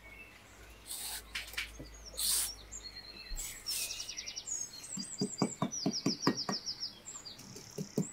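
A small trowel scrapes and pushes sand, then pats it down with a quick run of light taps, about five a second, in the second half. Birds chirp and trill in the background.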